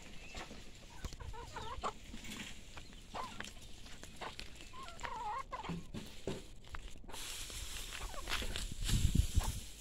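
Domestic chickens clucking, with several short wavering calls. Near the end a low rumble, the loudest sound.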